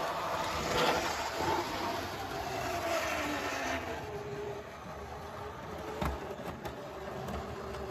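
Triang Hornby Blue Pullman 00 gauge model train running along the track: a steady electric-motor whir and wheel rumble on the rails. It gets quieter about halfway through, with a few faint clicks near the end.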